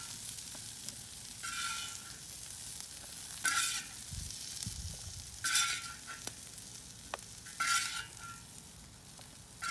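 Chopped onions and peppers frying in bacon fat, a steady sizzle, with a short scrape of a utensil in the pan about every two seconds as they are scooped out.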